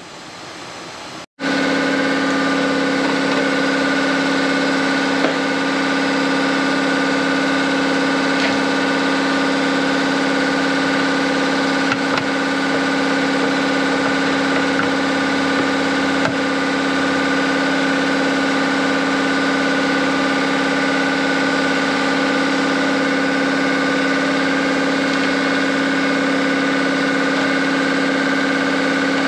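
A steady machine drone at one unchanging pitch, with a few faint clicks, starting abruptly about a second in.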